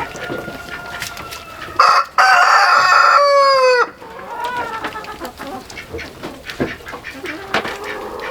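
A rooster crows once, loudly, about two seconds in, its call sliding down in pitch at the end. Hens cluck quietly around it.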